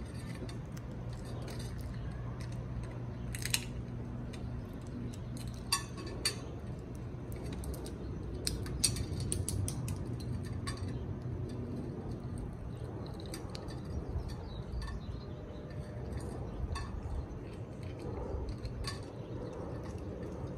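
Amazon parrots eating from a bowl: irregular sharp clicks and taps of their beaks working the food and knocking the bowl, a few louder than the rest.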